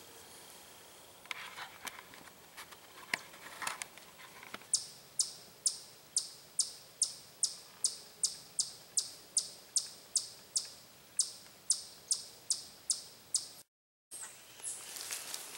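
Eastern chipmunk giving its repeated chip alarm call: sharp, high chirps about two a second, kept up for some nine seconds. A few faint clicks come before it, and it stops abruptly near the end.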